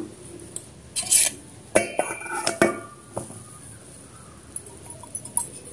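Clinks and knocks of a wire whisk and stainless steel mixing bowl being handled, several in the first three seconds, one with a brief metallic ring about two seconds in; after that only faint handling noise.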